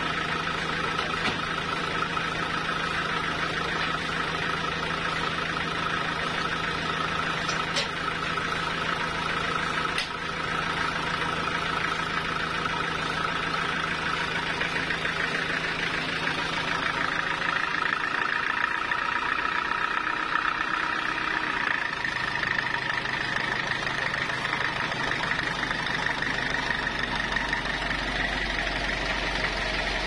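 The stationary engine driving a homemade band sawmill runs steadily with a whine. Its note changes about two-thirds of the way through, and the whine climbs higher in pitch.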